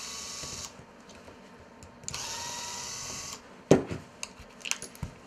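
Small electric screwdriver whirring in two short runs, about a second each, as it drives screws on a multiplier fishing reel. A sharp knock comes shortly after the second run, followed by a few light clicks.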